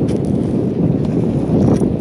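Wind buffeting the phone's microphone: a loud, steady low rumble.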